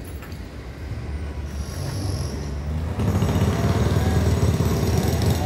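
Steady low engine rumble of machinery working nearby, getting louder about three seconds in, with a faint high whine about two seconds in.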